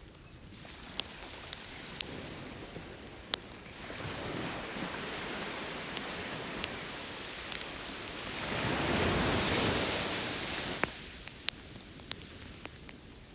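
Ocean surf washing on the beach, swelling twice and loudest about nine to ten seconds in, with the sharp crackles and pops of a wood campfire scattered throughout.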